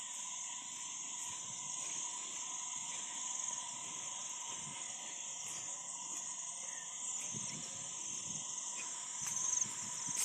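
Steady chorus of insects trilling in grassland, high-pitched and continuous, with a second steady whine lower down; it swells slightly near the end.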